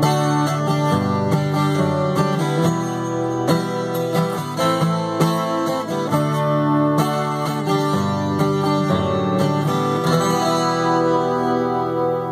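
Steel-string acoustic guitar strummed in chords. The strumming eases in the last couple of seconds, leaving the chords ringing.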